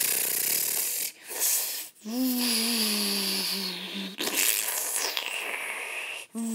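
Sound effects made with a voice: a long hissing blast for the gunfire, then a drawn-out, slightly falling roar for the giant gorilla, with more hissing in between.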